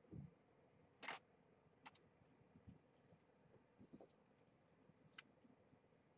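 Near silence: room tone with a few faint clicks and ticks, a brief soft rustle about a second in, and a couple of soft low thumps.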